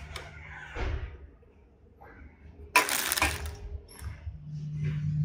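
Drink cans and a supermarket shopping trolley being handled, with one loud clatter about three seconds in. A steady low hum sets in near the end.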